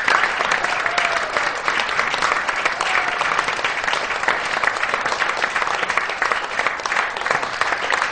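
Audience applauding steadily: many hands clapping in a dense, even patter.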